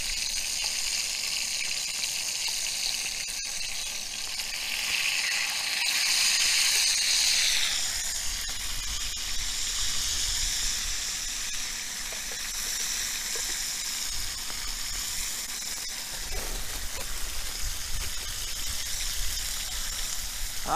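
Back bacon rashers frying in a small pan: a steady sizzle that swells louder for a few seconds near the middle. There is one light click a few seconds in.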